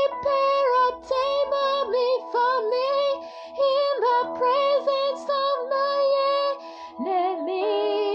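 Music: a high solo voice sings a slow melody with vibrato over steady held chords.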